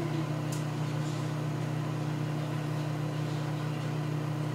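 Microwave oven running while it heats a marshmallow: a steady, even hum with a constant tone above it.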